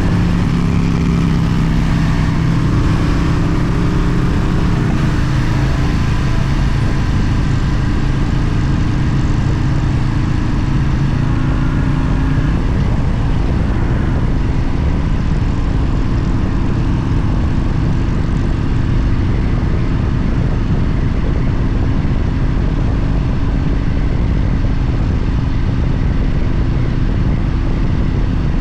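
Motorcycle riding at a steady speed: an engine drone under a low rush of wind, with a slight change in engine pitch about halfway through.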